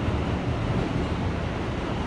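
R160A subway car running between stations, heard from inside the car: a steady low rumble of wheels on rails and car noise, with no distinct knocks or tones.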